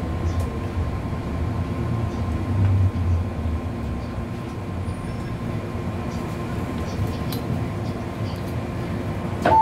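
MTR M-Train electric multiple unit heard from inside the car, rolling and slowing to a stop at a station: a low running rumble that eases off after about three seconds, under a faint steady whine. A loud sharp clunk comes near the end, as the doors are released.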